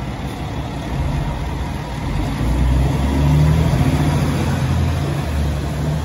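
Fire engine's diesel engine running as the pumper pulls away down the street. Its low hum shifts in pitch and grows louder about three seconds in.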